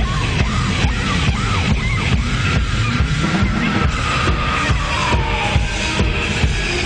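Electronic dance music with a steady beat, a synth line gliding downward about halfway through.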